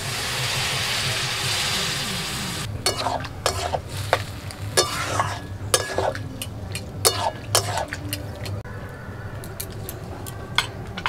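Water poured into a hot steel wok of fried spiced banana stem and potatoes hisses and sizzles for nearly three seconds. Then a steel spatula scrapes and clinks repeatedly against the wok as the curry is stirred.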